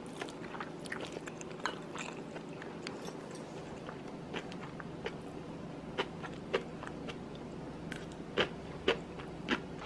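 Close-up eating sounds: chewing mouthfuls of bacon kimchi fried rice, with small clicks of a metal spoon against a ceramic plate over a steady low hum. A few sharper clicks come in the last few seconds.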